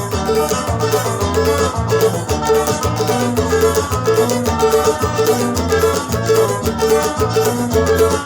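Guitarrada, the electric-guitar-led instrumental dance music of Pará, playing from a recording with a steady bass beat, and a cavaquinho strummed along to its rhythm.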